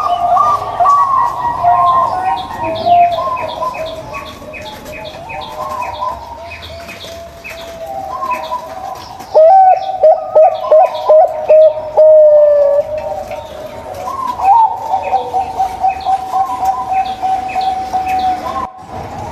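Local zebra doves (perkutut) cooing in overlapping rippling phrases of quick staccato notes, loudest in a run of sharp repeated notes a little after the middle. High, short chirps sound along with the cooing.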